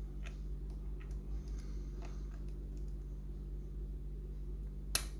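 Faint, scattered clicks and scrapes of a lock pick working the pin stack of an EVVA mortice lock, over a steady low hum. About five seconds in comes one sharper, louder click, which the picker takes for pin 5 clicking up.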